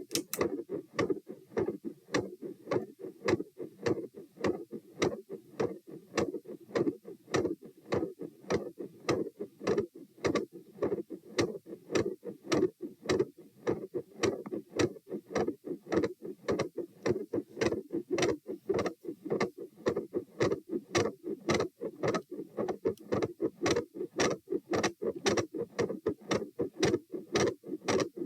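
Heartbeat heard through a stethoscope at the chest, fast and loud at about two beats a second, each beat a paired lub-dub. A murmur runs around the second heart sound, with an intermittent murmur described as machinery-like.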